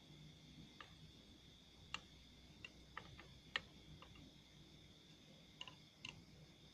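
Near silence broken by faint, irregular light clicks and ticks, about ten of them spread unevenly, over a steady faint high-pitched whine.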